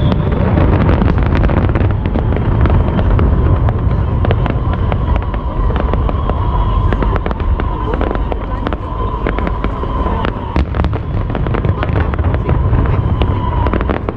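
Fireworks display: a dense, continuous run of sharp crackles and pops from bursting shells over steady low booms.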